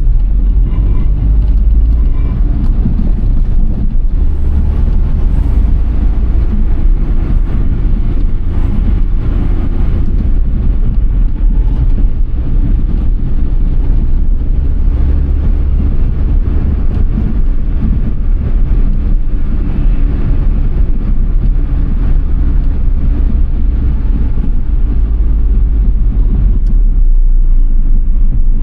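Suzuki Alto Works (HA11S) on the move, picked up by an onboard camera: a steady low engine drone with road rumble underneath.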